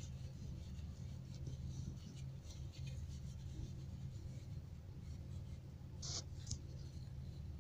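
Soft rustling and rubbing of a wipe being worked over dishes, with a louder pair of short rustles about six seconds in. A steady low hum runs underneath.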